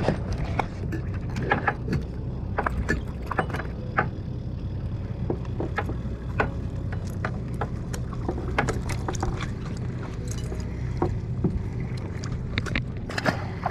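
Boat engine running steadily as a low hum, with scattered small clicks and knocks through it.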